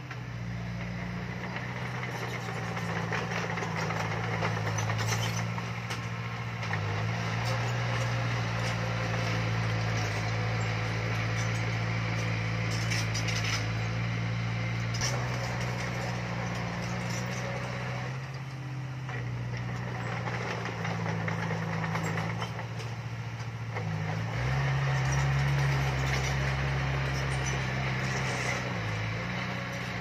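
Heavy diesel construction machinery running under load, its engine note stepping up and down several times. A rough mechanical noise lies over it, with a few sharp knocks.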